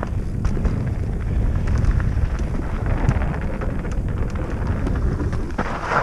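Wind buffeting the microphone of a camera riding along on a mountain bike, over tyres rolling on a dirt trail and frequent clicks and rattles from the bike. There is a louder rattling rush near the end.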